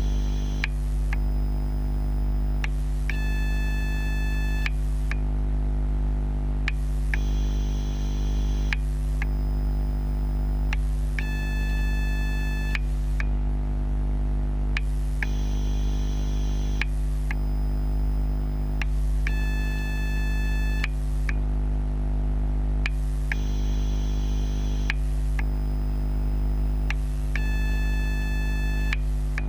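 Electrical noise of a 12-bay NiMH/NiCd AA battery charger at work, picked up through contact microphones: a steady low hum and buzz, with a high electronic whine that comes and goes in a repeating cycle, switching between two pitch patterns about every four seconds.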